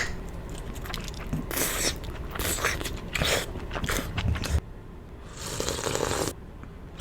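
Close-miked chewing and biting of soup dumplings: a run of short mouth-noise bursts, then one longer noisy sound about five and a half seconds in.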